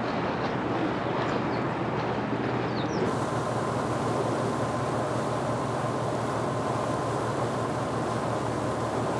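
Steady low engine rumble and hiss of a ship under way, shifting abruptly about three seconds in, after which a faint steady tone runs through it.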